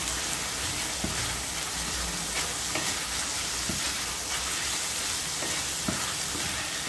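Pork slices and onions in soy and oyster sauce sizzling steadily in a frying pan as a wooden spatula stirs and turns them, with a few light knocks of the spatula against the pan.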